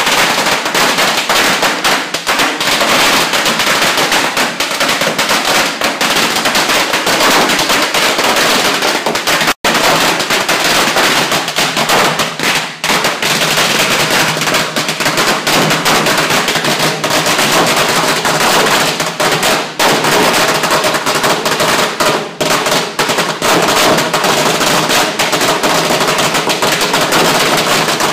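A long string of firecrackers going off in a continuous, rapid crackle of loud bangs.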